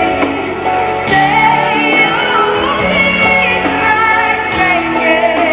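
A woman singing a slow pop ballad live, with sustained, gliding notes over instrumental backing.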